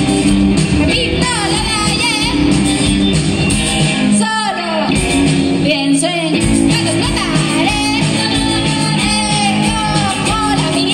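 Live rock band playing: electric guitars, bass guitar and drums with a woman singing. About four seconds in, the bass and drums drop out for about two seconds, then the full band comes back in.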